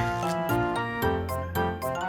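Background music: a melody of short, changing notes over a steady beat.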